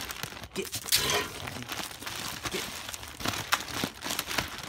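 Plastic bag of ice crinkling and rustling as hands pull at its top to get it open, with many small sharp cracks and clicks mixed in.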